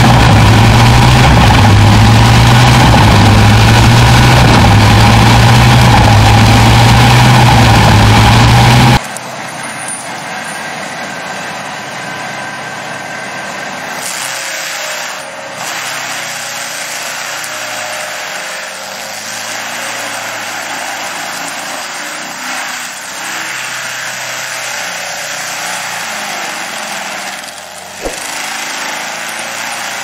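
A large tractor-powered wood chipper running loud and steady with a deep hum. About nine seconds in it gives way to a quieter tractor-mounted forestry mulcher grinding a tree stump, its engine note rising and falling, with a sharp knock near the end.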